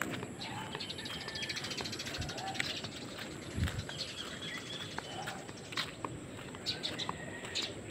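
Outdoor ambience of birds chirping, with irregular footstep scuffs and clicks on a concrete path.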